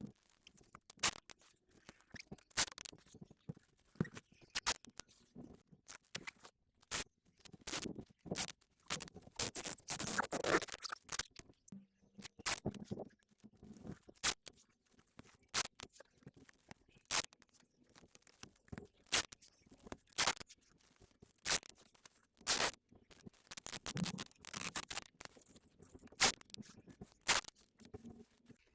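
Adhesive tape being pulled off its roll, torn and pressed down, with scratchy handling noise: many short sharp crackles, and a longer rasp about ten seconds in.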